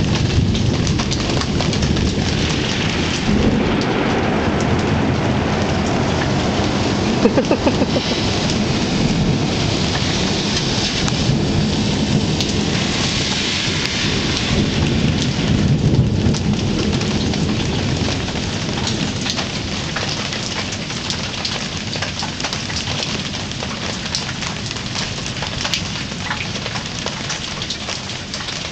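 Steady rain falling, with low rolling thunder rumbling through about the first half and then dying away as the storm passes.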